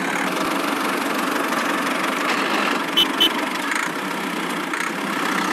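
Steady engine-like running sound as the miniature tractor drives along, with two short sharp clicks about three seconds in.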